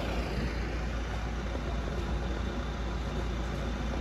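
A vehicle engine idling steadily, a constant low rumble.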